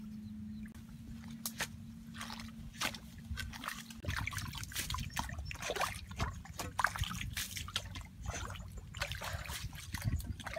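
Shallow muddy water sloshing and splashing in short, irregular strokes as a pipe is poked and stirred through the puddle. A low steady hum in the first few seconds stops about four seconds in.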